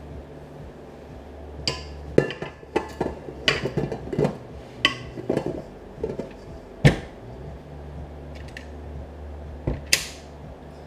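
Metal clanks and knocks from a tilt-head stand mixer as its dough hook is fitted and its stainless steel bowl settled, a quick run of them followed by one louder knock about seven seconds in and another near the end.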